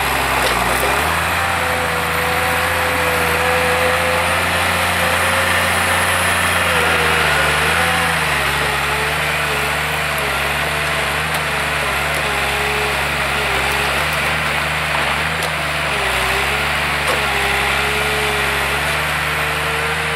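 Valmet 911.1 forest harvester's diesel engine running under working load, with a wavering hydraulic whine as the crane and Moipu 500 head work. The engine note shifts about a second in, again near seven seconds and near fifteen seconds.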